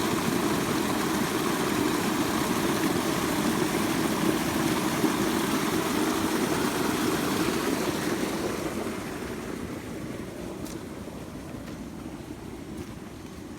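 Floodwater from rice fields rushing into a large pond: a steady, loud rush of water that grows fainter over the last few seconds.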